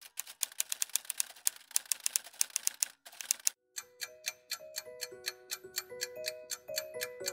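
Typewriter keys clacking in a quick run of sharp strikes. About halfway through, a gentle mallet-instrument melody comes in, and the key strikes carry on in an even rhythm over it.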